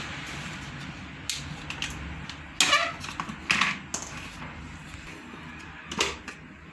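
Kitchenware being handled: a handful of separate knocks and clinks spread over several seconds, with a low steady hum of the room underneath.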